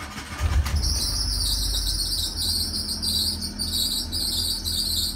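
Proton Waja engine running just after starting, a low steady hum under a loud, rapidly pulsing high-pitched chirping that begins about a second in, which the owner puts down to the timing belt.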